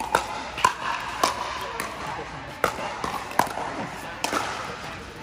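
Pickleball rally: paddles striking a plastic pickleball back and forth, a string of sharp pocks about every half second to a second.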